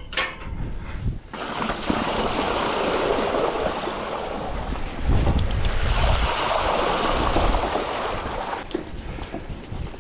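Wind rushing and buffeting across the microphone while cycling, with a heavier low rumble of gusting about halfway through.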